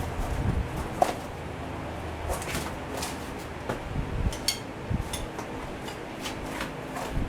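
Irregular clinks and knocks of hand tools on metal, with a brief metallic ring about four and a half seconds in.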